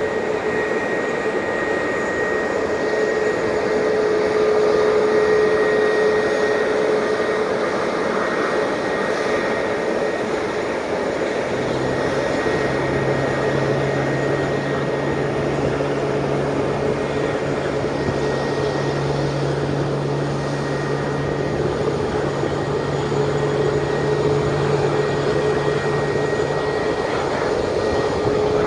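Airbus A320neo's Pratt & Whitney PW1100G geared turbofan engines running at taxi power as the airliner taxis past: a steady rush of engine noise with a high, even whine. A lower hum joins about twelve seconds in.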